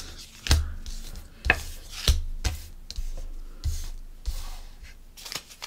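Handling noise: about eight irregular soft taps and knocks, each with a dull low thump, as of things being handled on a table close to the microphone.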